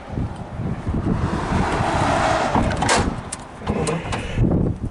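Wind buffeting the microphone, a low irregular rumble with a hiss that swells and fades, and a single sharp click about three seconds in.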